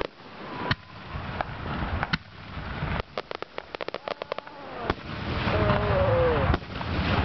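Aerial fireworks going off: single sharp bangs of shells bursting, then a rapid string of crackling reports about three to four seconds in. The sound grows louder and denser over the last two seconds.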